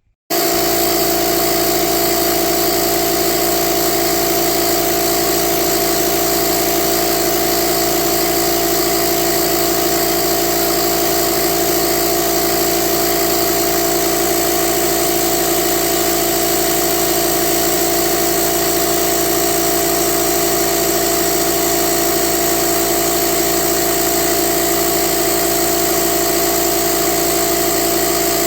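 Diode laser engraver setup running during a cut: a loud, steady, unchanging machine drone with several fixed hum tones, starting abruptly.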